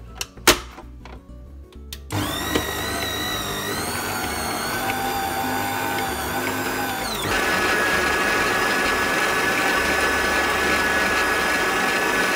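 Electric stand mixer beating cream cheese and butter with its flat beater: the motor starts with a whine about two seconds in and steps up to a higher speed, louder, a few seconds later, running steadily from then on. A single knock comes about half a second in.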